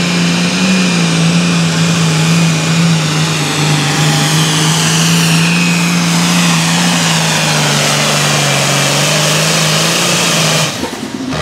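Case IH 7240 Super Farm pulling tractor's diesel engine running flat out under the sled's load, its note sagging slowly as the load builds, then cutting off suddenly near the end as the pull stops.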